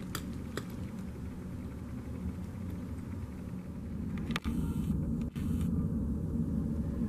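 Steady low background rumble with a hum, with a few faint clicks in the first second. The rumble drops out briefly twice, about four and a half and five and a half seconds in, and runs a little louder after the first break.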